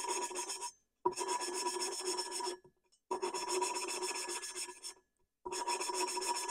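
Exhaust valve being lapped into its cylinder-head seat with silicon carbide grinding paste, turned back and forth by a valve-grinding stick spun between the palms. It makes a gritty metal-on-metal rasp with a ringing note, in four spells of one to two seconds with short pauses between them.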